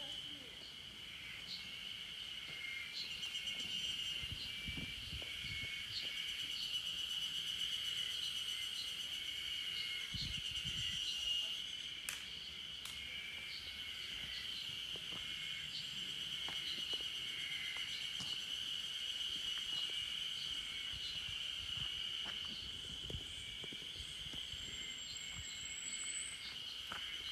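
A steady, high-pitched chorus of insects buzzing, with faint low bumps and a short high chirp near the end.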